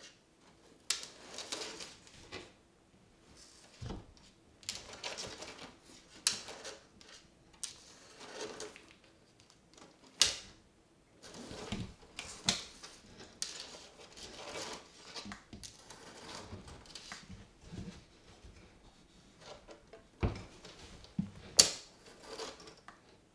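Argus monitor lizard's claws and jaws scraping and clicking against a bathtub as it swallows a hamster: irregular taps and short scrapes, the sharpest clicks about ten seconds in and near the end.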